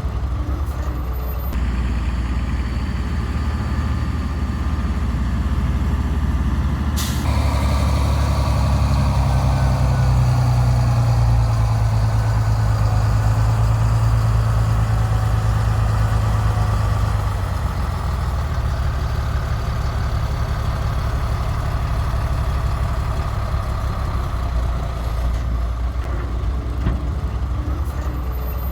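Heavy diesel engines of a JCB backhoe loader and a Tata dump truck running. About seven seconds in there is a sudden sharp sound, then an engine revs up under load, holds a higher note for about ten seconds and settles back to a steady run.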